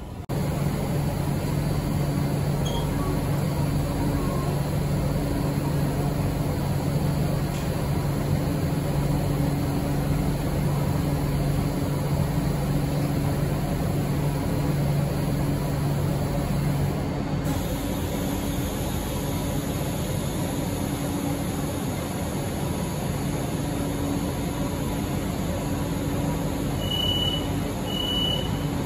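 Steady rumble and hum of a subway station, with a low pulsing drone that fades out a little past halfway. Near the end come three short, high electronic beeps about a second apart, a lift's door-closing warning.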